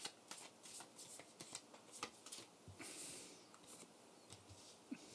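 Faint handling of tarot cards: a quick string of soft card clicks and rustles, then a brief swish about three seconds in and another click near the end.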